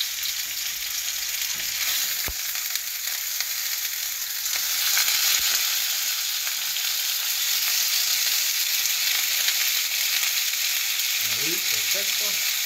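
Salmon fillets sizzling in hot oil in a non-stick frying pan. The sizzle grows louder about four to five seconds in as the fillets are turned over with a spatula. There is a single sharp knock about two seconds in.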